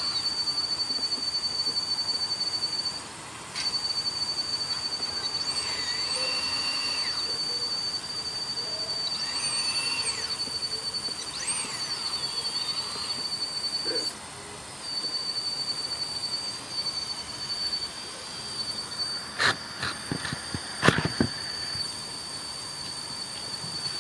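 Electric motors of an RC model excavator whining steadily and high as the boom and arm move. The whine cuts out briefly twice, and shorter whines rise and fall in pitch over it. A few sharp knocks near the end.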